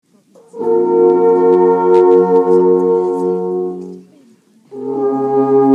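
Alphorn playing two long held notes, with a short break between them about four seconds in.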